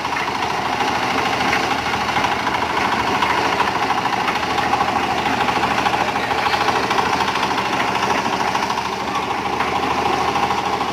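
Concrete mixer running under its engine, with a steady, fast knocking rhythm that does not change.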